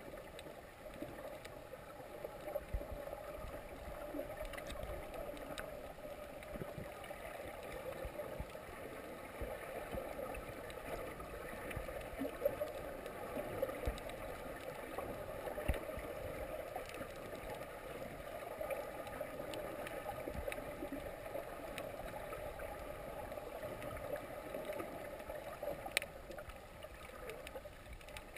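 Muffled underwater ambience picked up through a GoPro's waterproof housing: a steady wash of water noise with scattered faint clicks and knocks, and one sharper click near the end.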